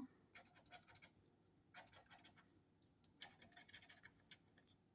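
Faint scratching of a coin across the coating of a lottery scratch-off ticket, in short bursts of quick strokes.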